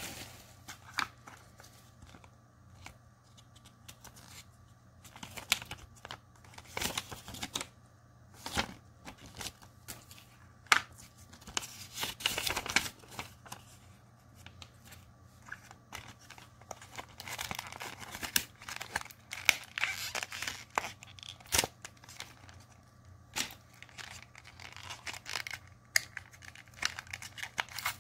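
Paper and cardboard handling noise: a paper instruction leaflet crinkles and rustles as it is unfolded and handled, with irregular clicks and taps from the small cardboard box and card being moved about.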